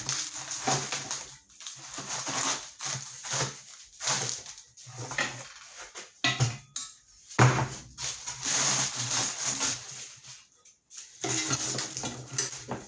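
Reciprocating saw cutting through the welded steel shell of a scrap compressor, run in irregular stop-start bursts with the blade rattling and chattering against the metal. The cut goes rougher than usual.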